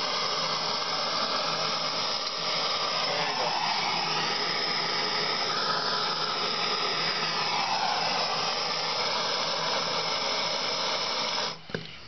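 Handheld gas torch burning with a steady, loud hiss and roar while its flame heats Loctite-coated brake disc bolts to soften the threadlocker. The flame cuts off abruptly near the end with a click.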